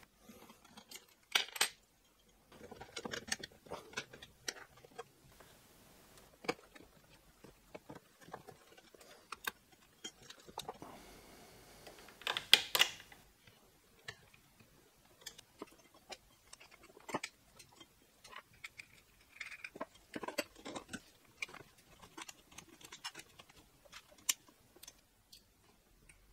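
Hands handling small metal parts of a 3D printer: scattered light clicks, taps and jingles, with louder clatters about a second and a half in and about twelve seconds in.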